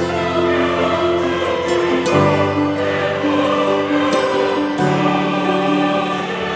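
Slow cinematic background music of long held chords. The chord and bass change twice, about two seconds in and again near five seconds.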